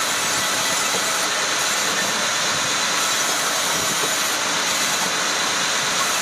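Woodworking machinery running steadily: a constant, even hiss and hum with no change in load.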